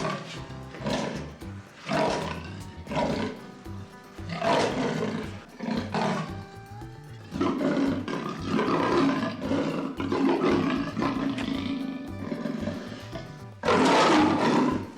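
Lion roaring in a series of loud calls, the loudest near the end, over background music with a steady beat.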